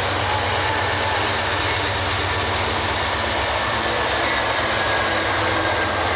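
Diesel freight locomotive rolling slowly past at close range, its engine running with a steady low throb and a thin high tone over it.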